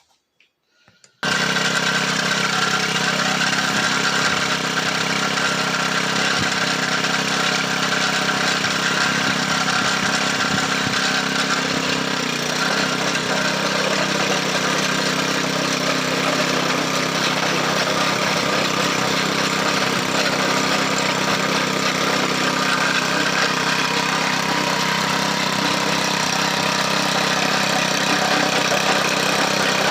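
A tiller's small engine running steadily at a constant speed, cutting in abruptly about a second in.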